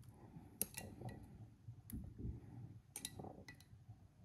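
Faint, scattered clinks and taps of a spoon scooping pasta sauce out of its jar onto the shells, about five sharp clicks over low handling noise.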